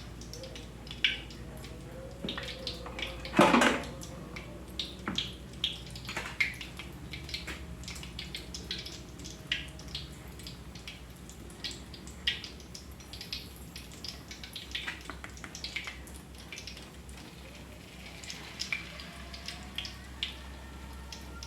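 Kitchen work sounds: scattered small clicks, pops and light clatter over a steady low hum, with one louder clank about three and a half seconds in.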